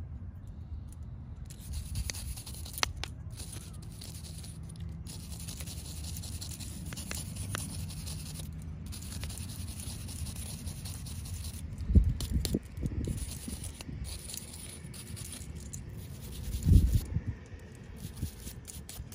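A stiff-bristled golf club brush scrubbing back and forth across the grooved metal face of a wedge, a steady scratchy rasp with short breaks, cleaning dirt out of the grooves. Two low bumps stand out in the second half.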